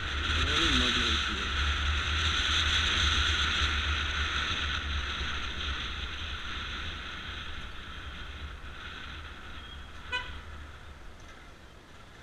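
Wind and road noise on a motorcycle-mounted GoPro while riding, with a deep rumble underneath, loudest over the first few seconds and then easing off. A single short horn beep about ten seconds in.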